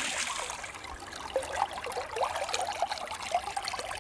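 Stream water trickling and burbling, with many short bubbling notes.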